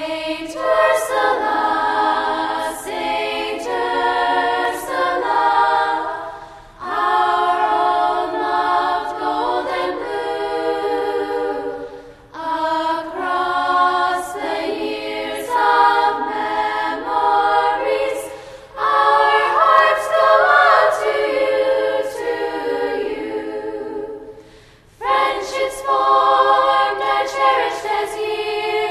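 A choir singing unaccompanied, in phrases of about six seconds with short breaks between them.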